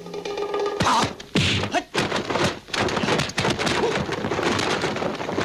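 Dubbed kung fu fight sound effects: a rapid, dense run of punch and kick thuds and whacks. These start about a second in, as a held musical chord breaks off.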